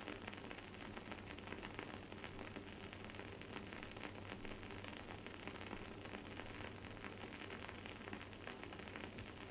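Wood-wick candle burning with a faint, dense crackle of rapid tiny pops.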